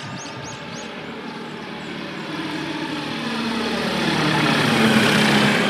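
Light single-engine propeller aircraft flying low overhead, its engine and propeller growing steadily louder as it comes over and is loudest near the end.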